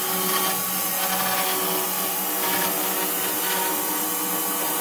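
Small electric motor running steadily: a constant whir with a steady hum under it, unchanging throughout.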